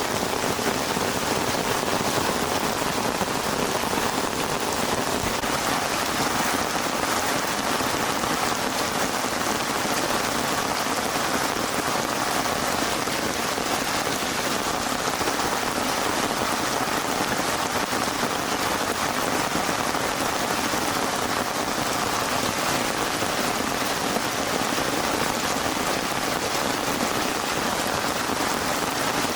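Heavy rain falling steadily, an even hiss of drops with no change in strength.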